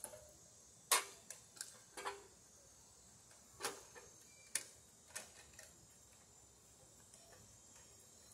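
Scattered sharp clicks and light knocks from a metal 30 amp RV receptacle box and its conduit being handled while wires are fed through the conduit into the box, about eight in the first six seconds, fainter after.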